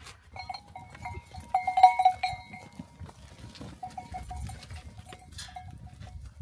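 A bell on one of a flock of sheep and goats ringing steadily for about two seconds, loudest about two seconds in, then giving short evenly spaced jingles as the animal moves, over the low shuffling of the flock.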